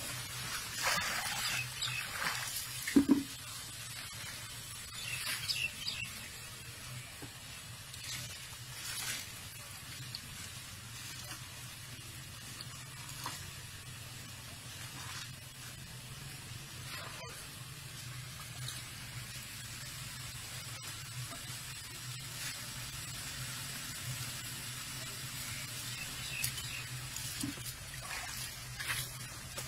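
Baby elephant splashing and slopping water in a tub: scattered splashes over a steady hiss, loudest in the first few seconds and again near the end.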